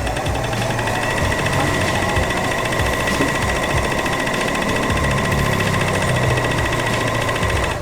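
Singer 14SH754 overlock machine running at speed, sewing a 3-thread overlock seam: a steady motor whine with a fast stitching chatter, which stops suddenly near the end.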